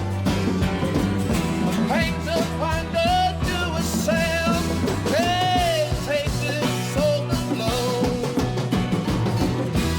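Instrumental break in a late-1960s-style rock song: a lead melody line of bent, wavering notes over a steady bass line and drums.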